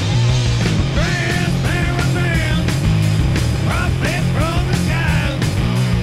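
Loud punk rock music with a steady drum beat and a bending melody line over it.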